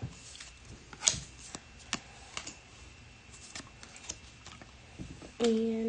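Baseball trading cards being flipped through by hand, giving light irregular snaps and slides as each card is slipped off the stack, the sharpest about a second in.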